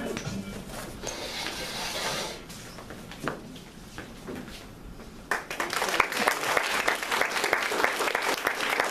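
Quiet shuffling and a few knocks, then about five seconds in, an audience breaks into steady applause.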